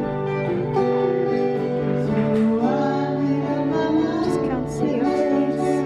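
Band playing live: guitar with a sung melody.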